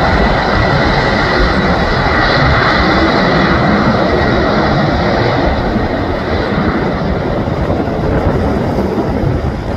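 Boeing 767-300ER freighter's twin jet engines at takeoff power during the take-off roll: a loud, steady rush of noise with a faint high whine, easing off a little in the second half.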